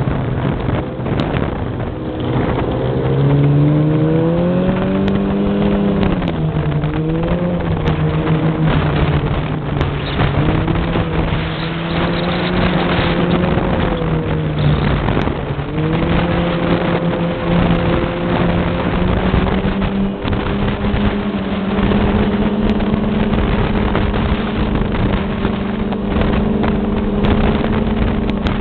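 Yamaha snowmobile engine running under way, its pitch rising and falling with the throttle: it climbs a few seconds in and dips briefly twice, then holds steadier and a little higher in the last third. Underneath is a steady rushing noise.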